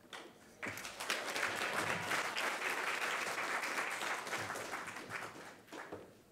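Audience applauding. The applause starts about half a second in and dies away near the end.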